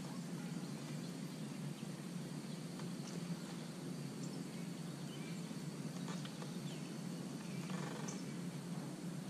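Lakeshore ambience: a steady low rumble with birds chirping briefly here and there, and one louder call about eight seconds in.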